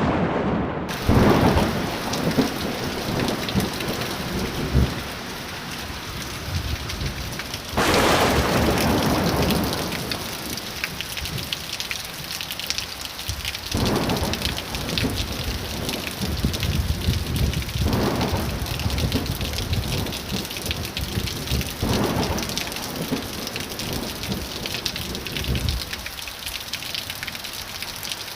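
Heavy rain falling steadily, with thunder breaking and rumbling about five times: a crash just after the start, the biggest clap about eight seconds in, then weaker rolls roughly every four seconds.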